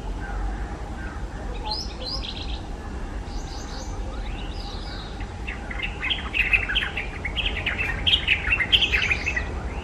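A few short high chirps, then about halfway in a white-browed bulbul bursts into song: a rapid, jumbled run of notes lasting about four seconds, the loudest part.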